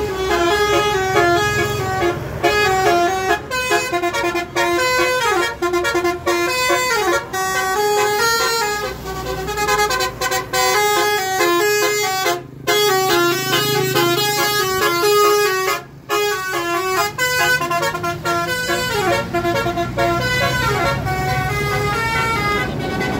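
Indonesian bus 'telolet' horn, a multi-tone musical horn, playing a tune of short stepping notes over and over, with the bus engine running underneath. The tune breaks off briefly twice around the middle.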